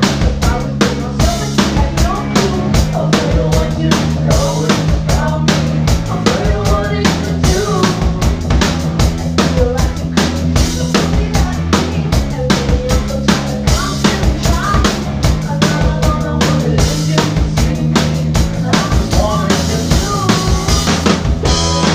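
Live band playing, with a drum kit keeping a busy, steady beat under sustained bass and other instruments.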